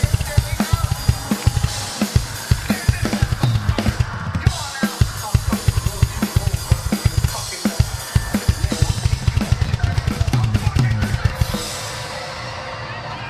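Live drum solo on a Premier rock drum kit: fast bass drum, snare and tom strokes mixed with cymbal crashes. The drumming stops shortly before the end, leaving a steady wash of crowd noise.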